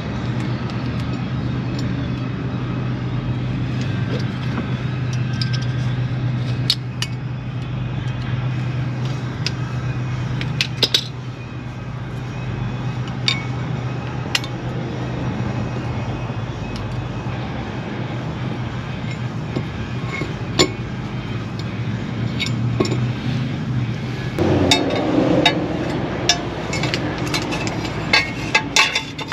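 Scattered clinks and light knocks of hand tools on metal suspension parts, more frequent near the end, over a steady low hum.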